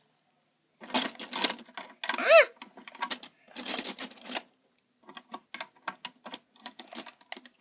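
Plastic Lego bricks clattering and clicking as pieces are rummaged through and pressed together: clusters of rattling early on, then scattered single clicks in the second half. A short squeak that rises and falls in pitch, about two seconds in, is the loudest moment.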